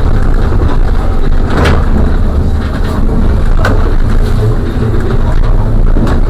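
Trolleybus driving along a street, heard from a cab-mounted camera: a loud, steady low rumble of the moving bus, with a couple of sharp knocks.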